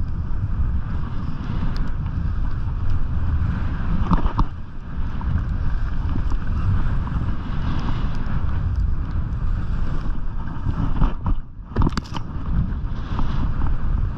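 Wind buffeting a GoPro's microphone at skiing speed, over the steady hiss and scrape of skis carving across packed snow, with a couple of brief sharper scrapes.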